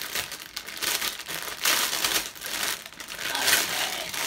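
Clear plastic garment bag crinkling in uneven bursts as it is handled and opened by hand.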